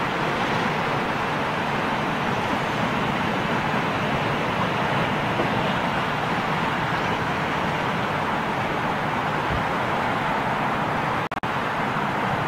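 Steady roar of jet aircraft noise across an airport, with no distinct events. It drops out for an instant twice about eleven seconds in.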